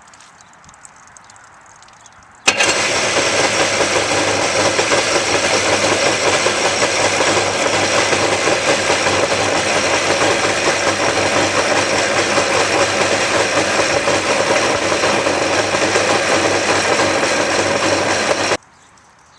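Two-stroke jet ski engine running steadily. It starts abruptly about two and a half seconds in and stops abruptly near the end.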